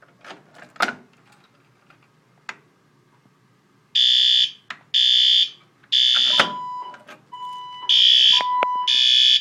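Fire alarm system going into alarm: a few sharp clicks, then a loud, high-pitched evacuation tone pulsing in the temporal-three pattern, three half-second pulses a second apart, a pause, then three more. Fainter, lower beeps sound between the groups.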